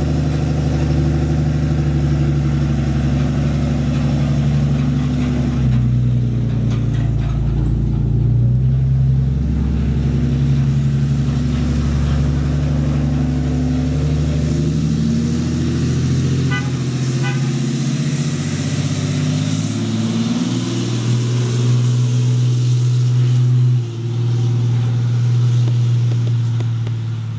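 Diesel engine of a Ram pickup with a 6.7 Cummins running steadily as it pulls a loaded gooseneck trailer away. Its note steps down and back up several times, and it sounds really good.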